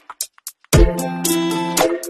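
Background music with a drum beat and held chords. It drops out for about the first two-thirds of a second, leaving a few light ticks, then the beat comes back in.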